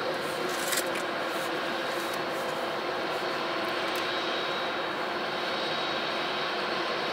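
Jet engines of a taxiing Boeing 767-300 at low power: a steady rushing noise with a faint high whine. A brief click about a second in.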